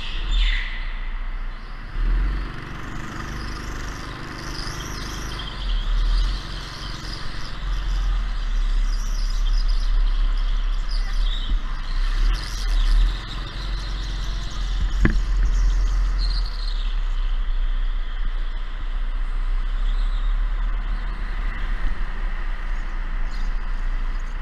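Go-kart running on track, heard from onboard: steady motor and tyre noise, with wind buffeting the microphone as a choppy low rumble. A single sharp click about fifteen seconds in.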